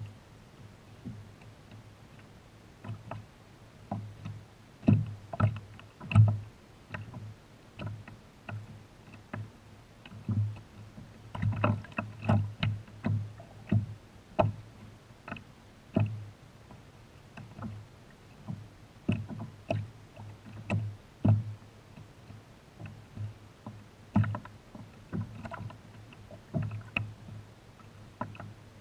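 Small waves slapping against a kayak hull: irregular hollow knocks and splashes, one every half second to a second or so.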